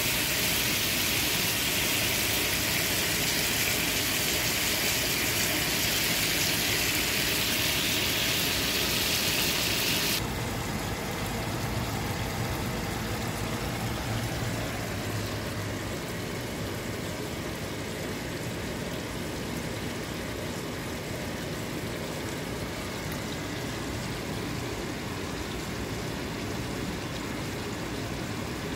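Grouper fillets sizzling in lemon butter in a frying pan, a loud, even, high sizzle. About ten seconds in it cuts off sharply, and a quieter, duller sizzle of cooking carries on.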